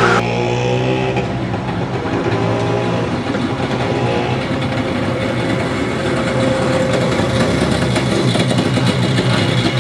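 Racing kart engines running, a continuous engine drone as karts drive on the track and pit lane.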